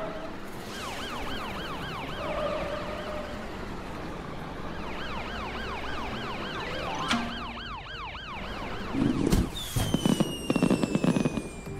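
Cartoon ambulance siren wailing in quick, repeated rising-and-falling sweeps. Near the end, small cannons fire signal rockets into the sky: a bang, then a burst of crackling pops with one whistle falling in pitch.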